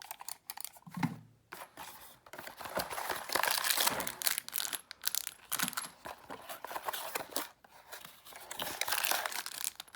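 Packaging being handled and torn open: plastic and paper crinkling, rustling and tearing in irregular bursts, heaviest a few seconds in and again near the end.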